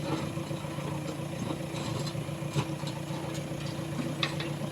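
JCB 3DX backhoe loader's diesel engine running steadily at low revs, with a few faint knocks.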